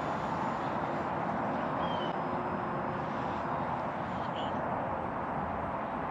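Steady outdoor wind rushing on the microphone, with two short high bird chirps, one about two seconds in and one just past four seconds.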